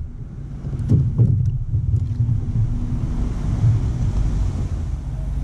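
Steady low rumble of wind on the microphone over open water, with a faint steady hum and a few light clicks in the first two seconds.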